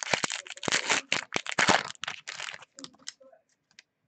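Foil wrapper of a football trading-card pack crinkling and tearing as it is ripped open: a dense run of crackles for about two and a half seconds, then a few light ticks as the cards are handled.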